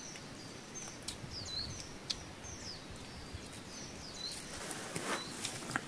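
A small bird calling over and over with short, high, sweeping chirps, against forest background sound. A few sharp clicks and light knocks are heard among the calls.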